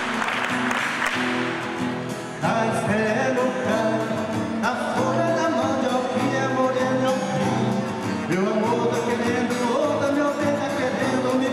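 Catira dance: rhythmic hand clapping and foot stamping for about two seconds, then singing over instrumental accompaniment for the rest.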